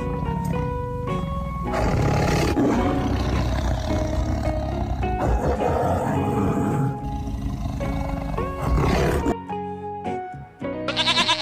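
A big cat roaring in long, rough roars over background music, then the roaring stops and the music carries on, with a short high call near the end.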